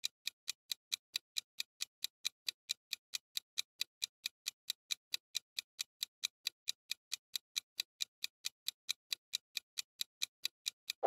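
Clock-ticking sound effect counting down the seconds of a quiz timer: steady, even ticks, about four a second.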